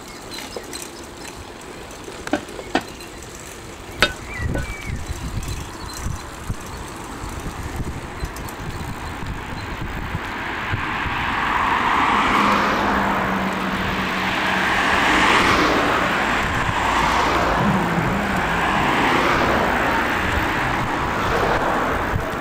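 Street noise from a bicycle ride: a few sharp clicks in the first few seconds, then a rushing road-traffic noise that swells about ten seconds in and rises and falls in slow surges.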